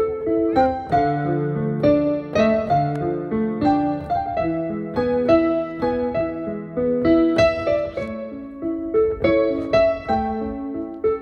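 Background piano music: a steady run of struck notes and chords, each note fading after it is played.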